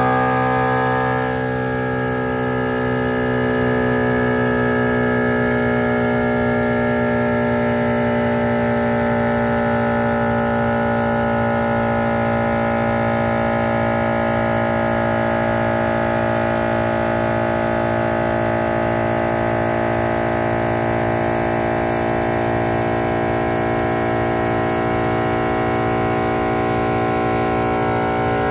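MaxiTrac 300 L/min twin-cylinder 12-volt air compressor kicking on with a jolt and spinning up within about a second, then running steadily with a loud droning whine as it pumps a 4-gallon air tank up from zero; its pitch sags slightly as the tank pressure builds.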